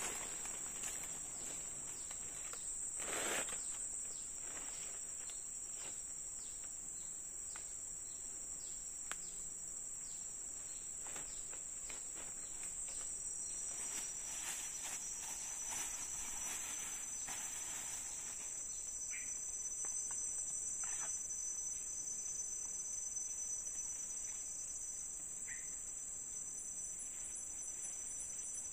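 Steady high-pitched drone of an insect chorus, with scattered faint rustles and clicks and a louder brief rustle about three seconds in.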